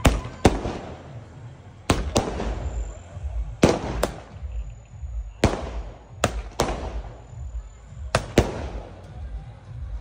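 Firecrackers bursting in the air: about a dozen sharp bangs at irregular intervals, some in quick pairs, each trailing off in an echo.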